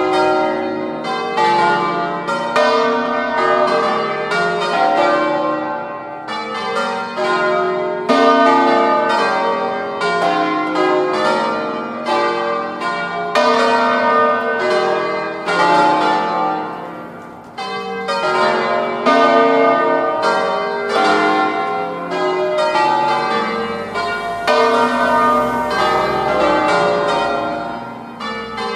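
Full peal of eight bronze church bells in B-flat, cast by Mazzola of Valduggia in 1882, swung full circle on their wheels, with many strikes a second overlapping in a continuous ringing. The loudness dips briefly a little past the middle before the peal swells again.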